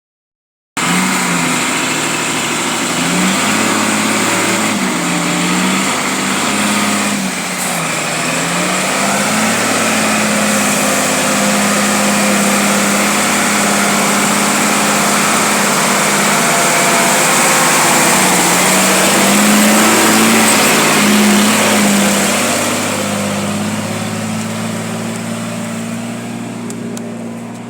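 A small engine running under load, its pitch rising and falling again and again, beneath a loud steady hiss. It starts suddenly just under a second in and fades over the last few seconds.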